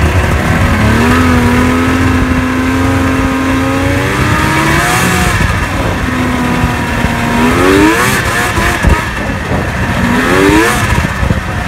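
Yamaha Mountain Max 700 snowmobile's three-cylinder two-stroke engine running under way, its pitch climbing three times as the throttle is opened.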